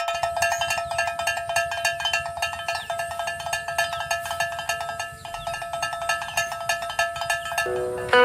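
Background music: a steady held drone under a fast, even pulse of short struck notes, the drone dropping lower near the end.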